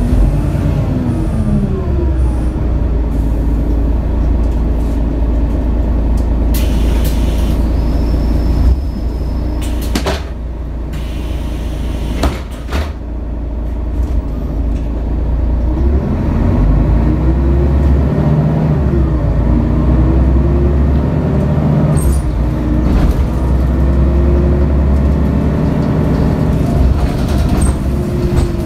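2004 Mercedes-Benz O530 Citaro's OM457hLA six-cylinder diesel heard from inside the bus. The engine slows near the start, pulls steadily, then picks up again about sixteen seconds in, with its pitch rising and dropping as the ZF Ecomat automatic changes gear. A few sharp knocks and rattles from the bus body come through in the middle.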